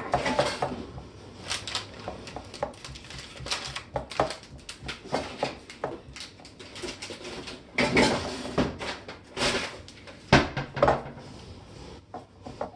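A spatula scraping and knocking against the sides of a mixing bowl as glue slime is stirred, in irregular strokes with a few sharper knocks about eight and ten seconds in.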